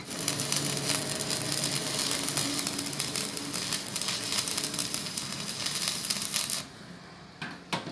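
Stick (arc) welding: the electrode's arc crackles and sizzles steadily as a continuous bead is run, then cuts off suddenly about six and a half seconds in when the arc is broken. A few faint clicks follow.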